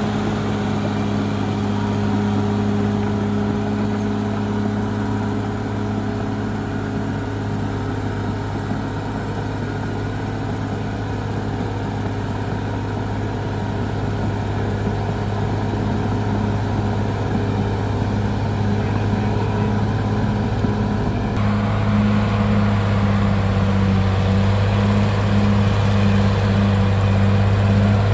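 Caterpillar D6R XL bulldozer's diesel engine running with a steady low drone. The sound shifts abruptly about three-quarters of the way through.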